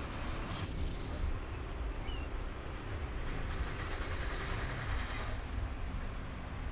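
Low, steady rumble of heavy construction machinery, with a few faint short high chirps over it.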